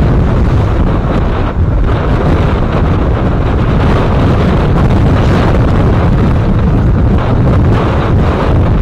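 Strong storm wind buffeting the microphone aboard a sailboat, a loud, steady rush weighted to the low end, over the hiss of waves breaking along the hull.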